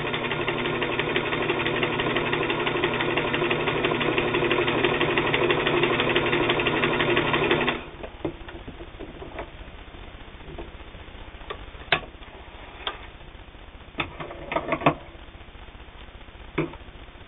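Singer 328K sewing machine stitching at a steady fast rate, then stopping abruptly about eight seconds in. A handful of sharp clicks and knocks follow.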